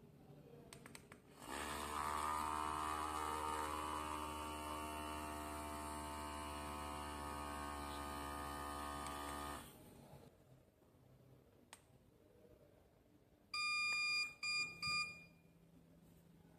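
CERA+ PCM03 portable electric espresso maker: its power button clicks, then its pump runs steadily for about eight seconds and cuts off suddenly. A few seconds later its buzzer beeps three times, one longer beep and then two short ones.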